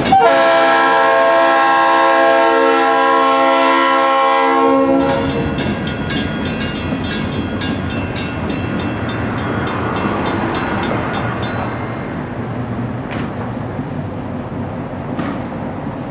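Diesel locomotive horn sounding one long multi-tone blast for about five seconds. Then a grade-crossing bell rings in a rapid, even rhythm over the locomotive's running engine, and the bell fades out about three quarters of the way through.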